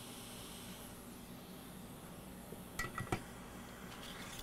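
Two small, sharp metallic clinks close together about three seconds in, as a 4R7 backlight coil (inductor) is lifted off an iPad Air 2 logic board with tweezers. A faint steady hiss fades out about a second in.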